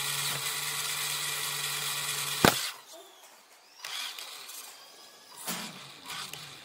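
Radio-controlled car's electric motor and drivetrain whirring steadily with a low hum, cut off by a single sharp knock about two and a half seconds in. After that it goes much quieter, with a few short, fainter noises.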